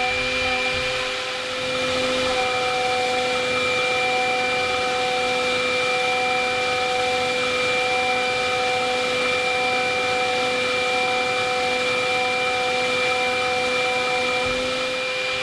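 DIY CNC milling machine's spindle driving an end mill through 21MnCr5 steel, a steady whine of several tones over a hiss of cutting.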